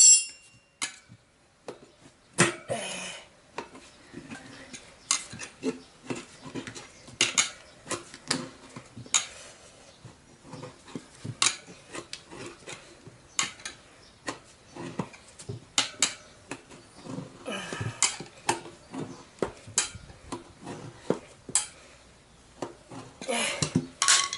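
Steel tyre levers clinking and knocking against the chrome spoked rim of a motorcycle front wheel as the tyre is levered off by hand: irregular metallic clicks, busier near the end.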